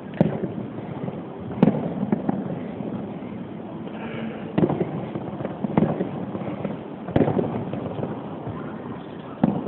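Fireworks display: about six sharp bangs of bursting shells at irregular intervals, a second or so apart, over a continuous background noise.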